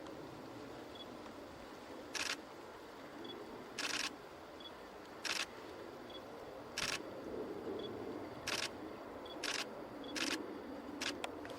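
Camera shutter firing single frames, about nine short clicks at uneven intervals, two of them close together near the end, over a steady low background noise.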